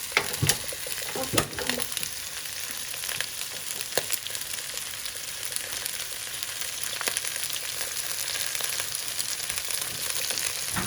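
Chicken feet and onions frying in oil in a pan: a steady sizzle with scattered pops and crackles, a few sharper ones in the first couple of seconds.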